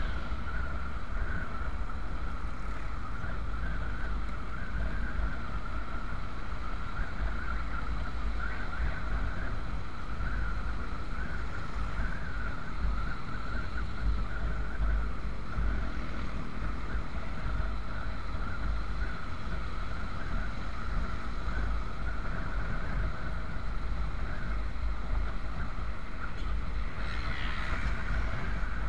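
Motorcycle riding on the road: heavy wind buffeting on the helmet microphone over the steady drone of the engine. Near the end a brief higher-pitched sound rises over it.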